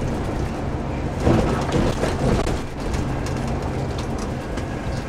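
Engine and road noise inside a moving truck cab: a steady low engine hum under tyre and road rumble, a little louder for a moment about a second in.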